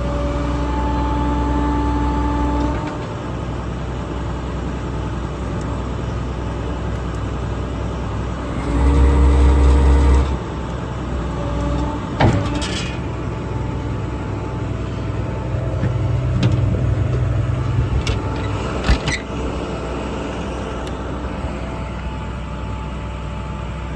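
Service truck's diesel engine running steadily while the hydraulic crane is worked, the hydraulics whining for the first few seconds and again about nine to ten seconds in, when the engine note swells under load. A couple of sharp clicks or knocks come about twelve and nineteen seconds in.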